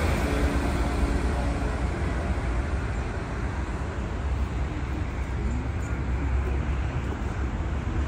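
Steady road traffic noise: a continuous low rumble of vehicles.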